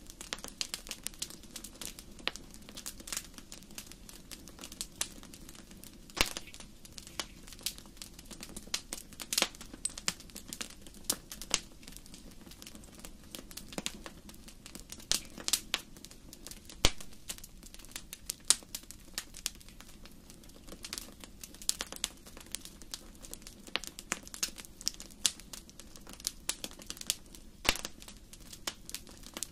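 Wood fire burning in a fireplace, crackling with a constant stream of irregular sharp pops and snaps over a low steady rush of flame.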